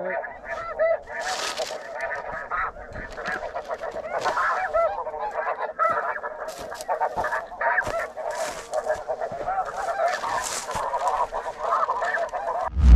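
Chorus of snow goose calls, many short high yelps overlapping without pause. Rustling now and then, and a loud low thump at the very end.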